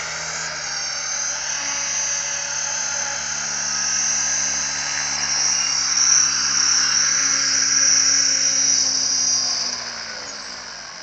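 Align T-Rex 550 RC helicopter's motor and rotor whining steadily as it hovers low and touches down. Near the end the rotor spools down and the pitch falls.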